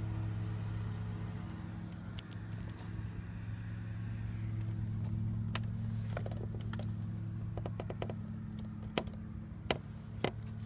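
A steady low motor hum, with a few sharp clicks in the second half.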